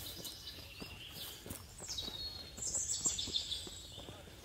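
Wild songbirds calling, with high falling notes loudest in the middle, over the soft crunch of footsteps on a rocky dirt trail.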